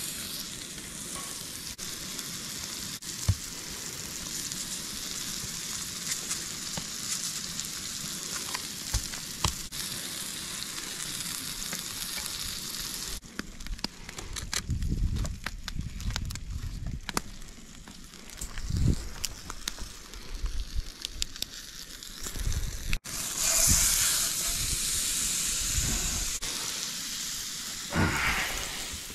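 Food frying in hot oil in a cast-iron skillet, a steady sizzle. In the middle it gives way to a stretch of low thumps and crackles, then the sizzle comes back near the end.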